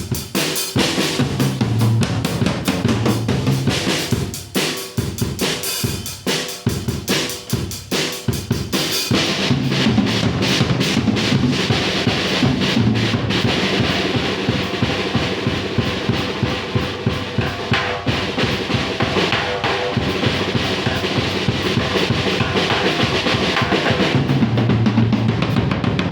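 Drum kit being played, with a Remo Encore PS head converted into an oil head among its drums. Separate drum strokes for about nine seconds, then faster, denser playing with a steady cymbal wash.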